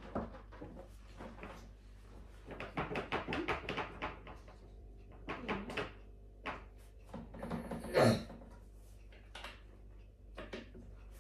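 Clicks and knocks of an ALFORDSON gaming office chair's parts being handled and fitted together by hand, in short irregular runs with a louder clunk about eight seconds in.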